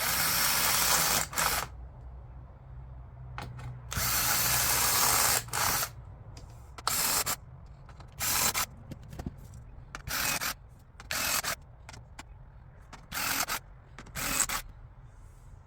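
Power drill with a self-centering bit drilling bench-dog holes in a wooden work-table top: two runs of a second or more, then a string of about eight short bursts with pauses between them.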